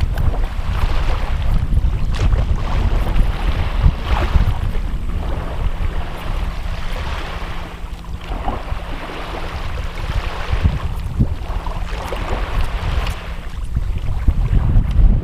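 Wind buffeting the microphone in a constant low rumble, with seawater washing against the breakwater in swells every few seconds.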